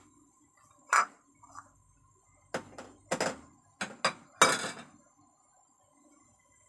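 Metal kitchenware clattering: a run of sharp clinks and knocks of pots and utensils, about eight in the space of four seconds, the loudest and longest about four and a half seconds in.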